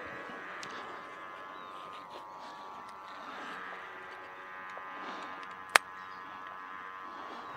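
Guwangan (sendaren), the humming bow on a large Balinese kaplik kite, droning in the wind as a steady buzz of several tones sounding together, swelling and fading a little. A single sharp click a little before the end is the loudest sound.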